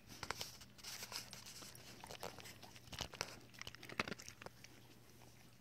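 Dog eating dry kibble out of a basket muzzle: faint, scattered crunches and clicks, with a few louder ones about three and four seconds in.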